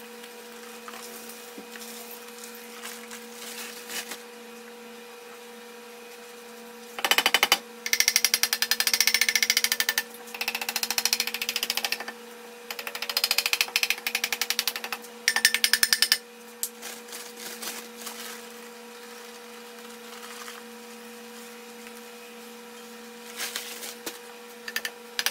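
A rubber mallet beating rapidly on a square steel tube being filled with concrete, in bursts of a second or two between about seven and sixteen seconds in, with a few lighter bursts near the end. A steady hum runs underneath.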